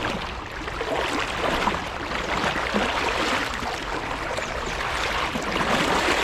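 Steady rush of water, with small splashes and lapping around a small boat on a river.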